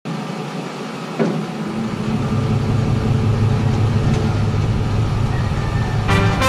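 Ford F-150 pickup's engine idling, a steady low rumble that builds about a second in. Music comes in near the end.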